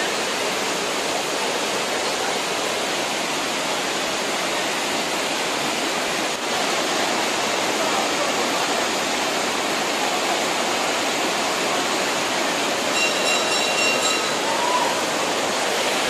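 A heavy torrent of floodwater from the Bhairavakona waterfall rushing over stone steps and rocks, a steady loud rush of water. A brief high steady tone sounds about three seconds before the end.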